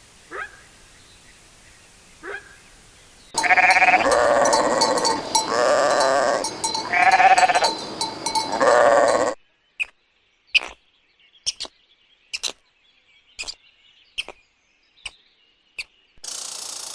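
Sheep bleating: a run of loud, wavering bleats starting about three seconds in and lasting some six seconds, which cut off suddenly. Faint short calls come before them, sharp scattered clicks follow, and a steady hiss sets in near the end.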